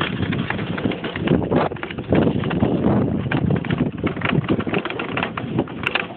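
Blokart sailing over lake ice: its runners and aluminium frame clatter and rattle in a dense, irregular stream over the rough ice, under wind buffeting the microphone.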